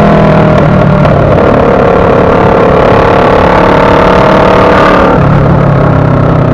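Motorcycle engine running under way, its pitch steady and then stepping down about five seconds in.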